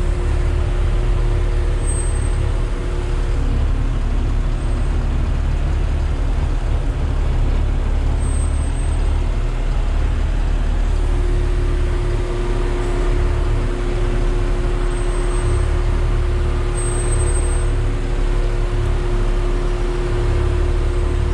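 Yard spotter truck's engine running steadily under way, a constant low rumble with a steady hum over it.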